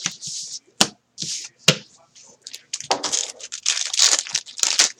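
Foil trading-card pack being torn open by hand, its wrapper crinkling. Short rips and a few sharp crackles come first, then a denser stretch of crinkling near the end.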